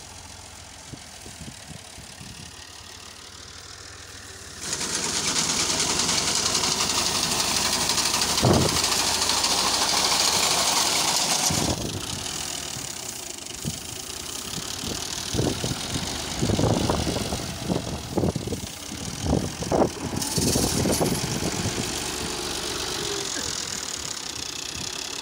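Fiat tractor engine running while its front-mounted wheat reaper cuts. A loud hiss comes in suddenly about five seconds in and drops away at about twelve seconds, and a run of sharp knocks and crackles follows.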